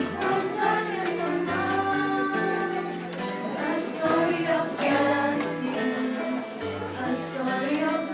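A song sung over an instrumental backing with a bass line that moves from note to note.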